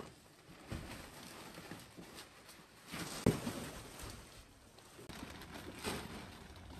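Filled woven plastic sacks being handled and stacked, with irregular rustling and knocks and one sharp thump about three seconds in.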